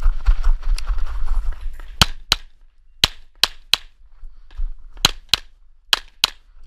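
Tanfoglio Stock II 9mm pistol firing nine shots in quick bursts: a pair, a string of three, then two more pairs, the shots in each burst about a third of a second apart. Before the first shot there is about two seconds of low rumbling movement noise.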